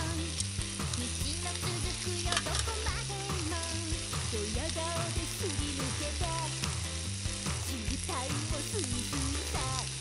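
Meat sizzling steadily in a small frying pan on a portable canister gas burner, under background music.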